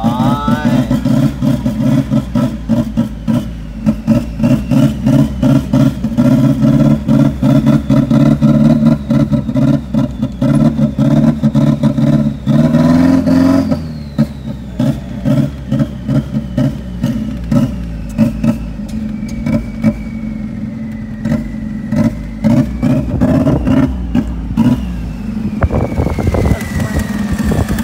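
Isuzu D-MAX 1.9 turbodiesel pickup engine running loud and revving, its note pulsing in quick uneven beats. A thin whistle sits above it, rising about halfway through and then slowly falling.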